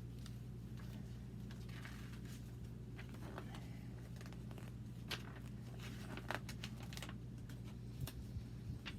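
Faint rustling and a few light clicks of stroller packaging being handled, over a steady low hum.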